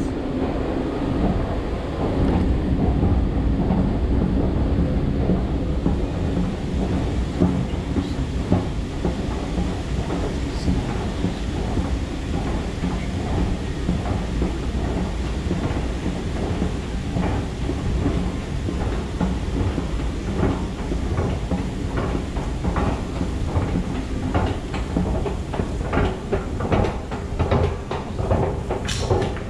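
Long metro escalator running: a steady low rumble and hum with continual light clicking from the moving steps, the clicks sharper near the end.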